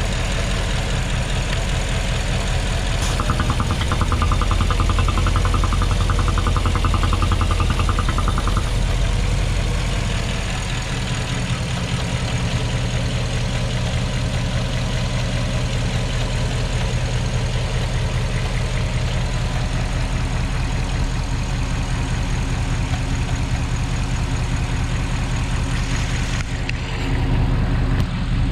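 Porsche Cayenne Turbo 957's twin-turbo V8 idling from a cold start, running steadily; it is a little louder for several seconds near the start and then settles.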